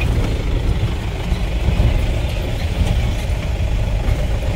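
Steady engine and road rumble of a moving vehicle, heard from inside the cabin while driving.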